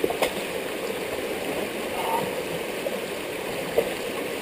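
Floodwater rushing fast down a dirt track turned into a stream, a steady rushing noise. Two sharp knocks stand out, one just after the start and one near the end.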